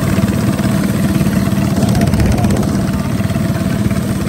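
Small mini bike engine running steadily near idle, close by, with an even, fast firing pulse and a constant low pitch.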